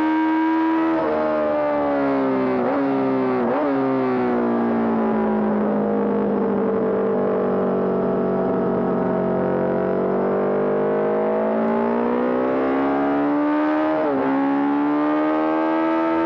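Honda CB750 racer's inline-four engine at racing revs. The pitch drops as the rider slows, with two quick throttle blips on downshifts, runs lowest through the middle as through a corner, then climbs steadily under acceleration, with a brief dip at a gear change near the end.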